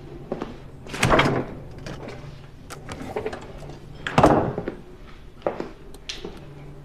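Large stainless-steel side-by-side refrigerator's door being opened and shut: two dull thuds about three seconds apart, with small clicks and taps in between.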